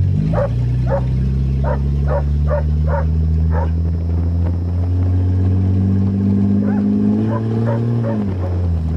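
1982 Toyota Cressida's engine heard from inside the cabin, pulling steadily with its pitch rising slowly for about eight seconds, then dropping near the end. A small dog gives a run of short yips, about two or three a second, over the first few seconds and a few more near the end.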